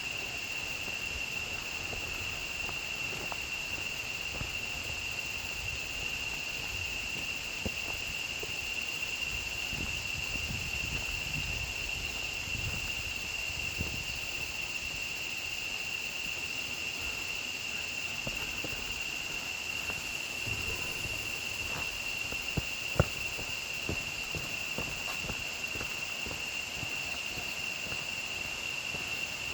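Steady insect chorus in tropical forest, one high continuous buzz, over irregular footsteps on a trail. Two sharp clicks stand out a little past the three-quarter mark.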